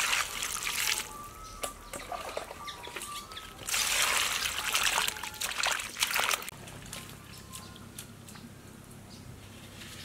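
Water poured from a jug into a metal bowl of cut napa cabbage and enoki mushrooms, splashing as a hand swishes the vegetables to wash them. The pouring eases after about a second, comes again from about four seconds in, and stops at about six and a half seconds.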